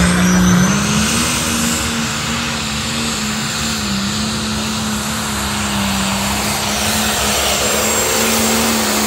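Pulling tractor's engine running flat out under load during a pull: a loud, steady engine note that holds its pitch with only small wavers.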